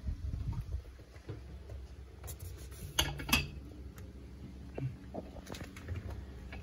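Wire hooks of a fabric hanging organiser basket being handled and hooked onto a metal desk frame: rustling with scattered sharp clicks, the loudest two close together about three seconds in.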